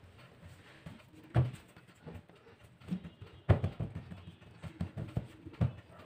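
Irregular light knocks and taps of hands and kitchen utensils on a table top as pizza dough is worked, the loudest about one and a half and three and a half seconds in, with a run of smaller taps after the second.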